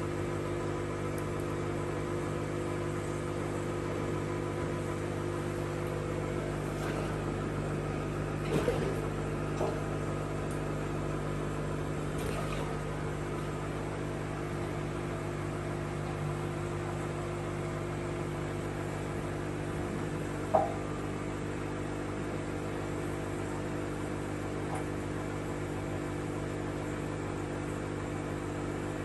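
Steady hum of aquarium equipment: the air pump feeding the bubbling air stones, heard as a set of fixed low tones under a faint hiss. A few brief clicks or splashes break in around eight, twelve and twenty seconds in, and the one near twenty seconds is the loudest.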